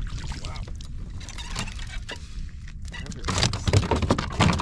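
Rapid clicking and rattling of fishing tackle and gear on a plastic kayak while a fish is fought, turning about three seconds in to louder knocks and thumps against the hull.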